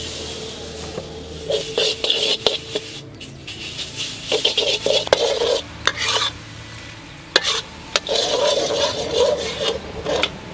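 A metal ladle scraping and stirring a bubbling dark sauce in an aluminium wok. The stirring comes in three bursts, with a few sharp knocks of metal on metal.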